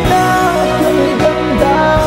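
A woman singing a Tagalog ballad over backing music, holding long notes that bend and slide in pitch.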